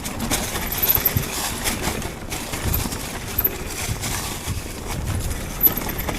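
Mountain bike being ridden over rough trail: tyres rumbling with frequent knocks and rattles from the bike, over steady wind noise on the microphone.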